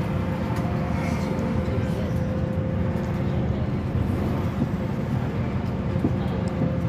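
Engine and road noise heard from inside a moving city bus: a steady low drone with a faint, constant whine above it.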